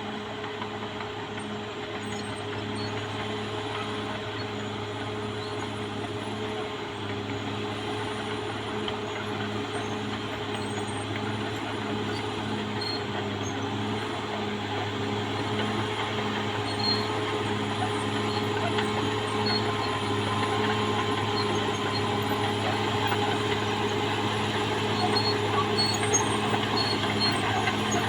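Caterpillar D6R XL bulldozer's diesel engine running at a steady pitch, getting gradually louder.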